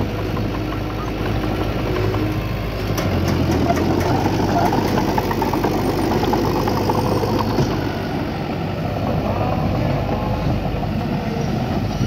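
Heavy diesel earthmoving machinery running steadily, its low engine note changing about three seconds in.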